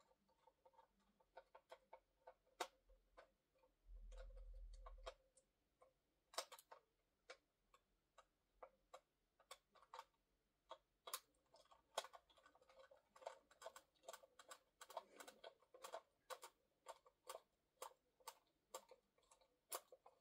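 Faint, irregular clicks and taps of small hard plastic toy parts being handled and fitted, coming faster in the second half, with a brief low rumble about four seconds in.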